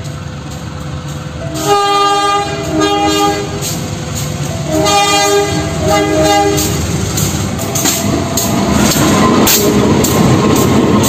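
KAI diesel locomotive running light on a shunting move sounds its multi-note horn in two double blasts. Its engine and wheels then grow louder as it passes close by, with wheels clicking over the rail.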